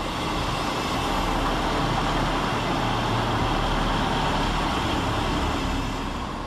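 ScotRail Class 158 diesel multiple unit running past along the platform as it comes in, a steady rumble of engine and running gear that eases a little near the end.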